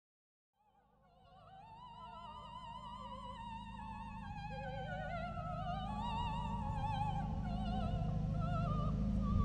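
Operatic singing with strong vibrato fades in from silence about half a second in and grows steadily louder, over a low steady rumble that also swells.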